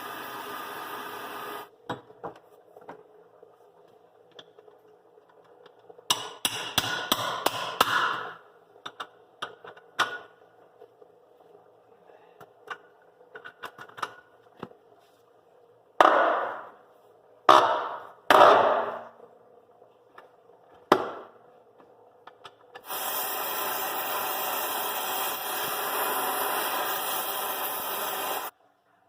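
Hand tools on seized cam bolts of a tractor's rear wheel rim: a quick run of knocks, then several loud separate metal strikes a second or so apart. A steady hiss runs briefly at the start and again for about five seconds near the end.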